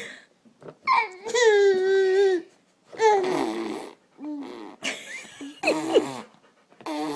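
A baby vocalizing: a string of about five drawn-out, high-pitched whiny babbling cries with short pauses between them.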